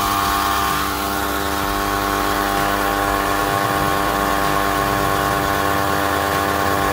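70mai portable 12V tyre inflator's electric compressor running steadily as it pumps up a car tyre, a quite loud, even drone.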